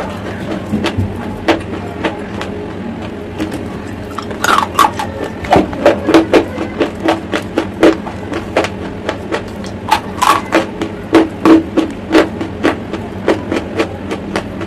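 Close-miked chewing of hard chalk lumps, crisp crunches in the mouth. They come sparsely at first, then thick and fast from about four seconds in.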